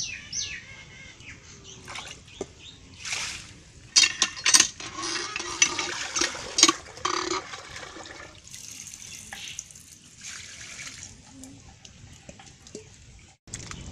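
Cast-iron hand-pump tubewell being worked by hand: water gushes and splashes out in spurts, with several sharp metallic knocks from the pump handle near the middle.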